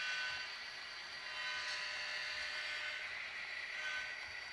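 HO-scale model diesel locomotives with DCC sound decoders running, their engine sounds played through small onboard speakers as a steady thin tone, over a model train rolling on the track.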